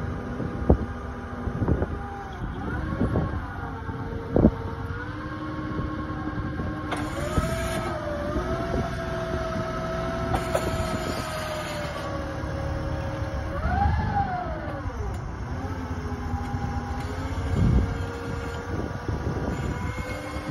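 Hyster H4.00XM forklift's engine running while its hydraulics work a double pallet handler, spreading the two pairs of forks apart. The engine note shifts in pitch as the hydraulics are used, swelling and falling back about fourteen seconds in. There are a few sharp clunks in the first few seconds.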